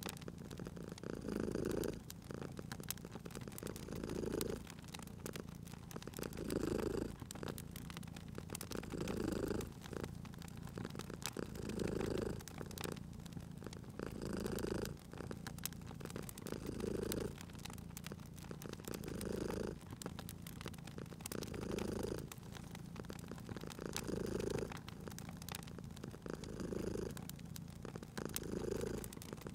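Domestic cat purring steadily, each purr swelling and fading with its breath about every two and a half seconds, over the scattered sharp pops and crackles of a wood fire.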